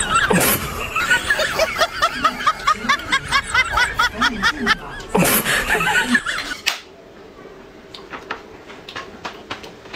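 Rapid snickering laughter over background music for the first six and a half seconds, then it stops, leaving faint light clicks and crinkles as hands pick at a paper wrapper around the food.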